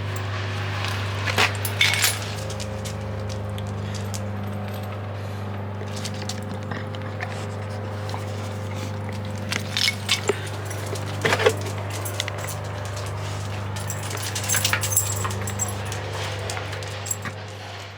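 A steady low hum with scattered light clicks and clinks of small hard objects being handled.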